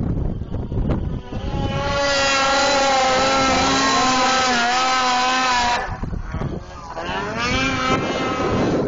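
Two-stroke snowmobile engine running at high revs, holding a steady pitch for several seconds. It drops off about six seconds in, then revs back up with a rising pitch near the end.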